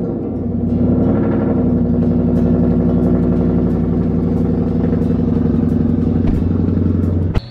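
Ford Mustang GT's V8 engine idling steadily just after being started, heard from inside the car. The sound cuts off abruptly near the end.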